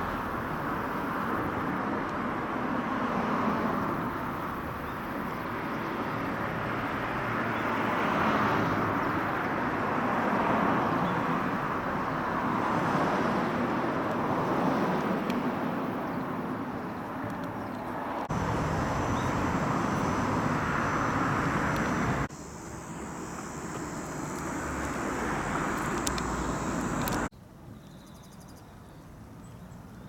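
Outdoor ambience of distant road traffic: a steady whoosh that slowly swells and fades as vehicles pass. The sound shifts abruptly a few times and drops to a much quieter background near the end.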